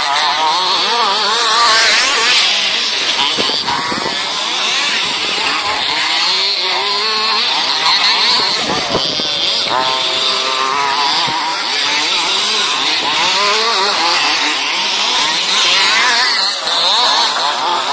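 Several large-scale petrol RC off-road buggies with small two-stroke engines buzzing, their overlapping engine notes rising and falling as they rev up and back off around the track.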